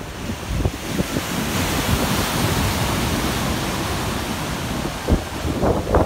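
Ocean surf: a wave breaking into rushing whitewater, its hiss swelling about a second in and holding steady, with wind buffeting the microphone.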